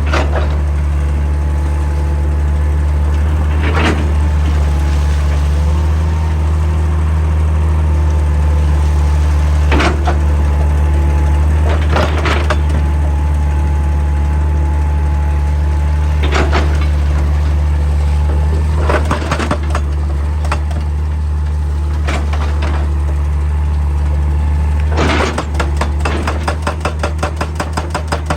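Excavator diesel engine running steadily, with a faint steady whine over it and a few single knocks scattered through. Near the end a hydraulic rock breaker starts hammering in rapid, even strokes.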